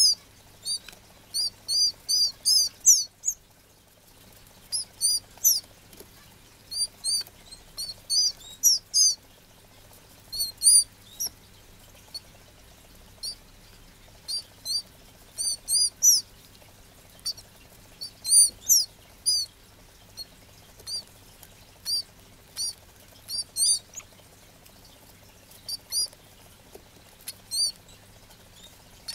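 Red canary chick cheeping: short, high chirps in quick runs of several, repeated with brief pauses between runs.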